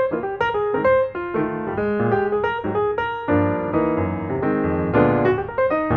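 Background piano music: a quick run of notes over sustained lower chords.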